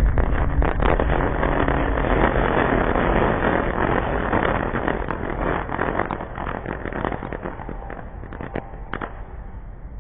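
Crackling of a 5-inch sky shot shell's stars after the burst: a dense patter of sharp little pops over a low rumble. It thins out and fades, with a few last separate pops near the end.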